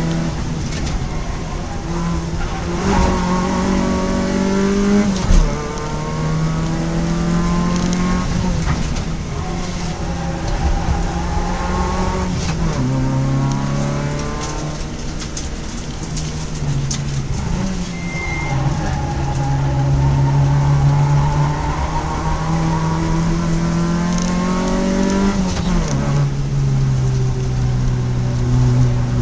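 Car engine heard from inside a stripped track car's cabin, pulling hard with its note climbing steadily and then dropping sharply, about four times, over road and wind noise. A short thump comes about five seconds in.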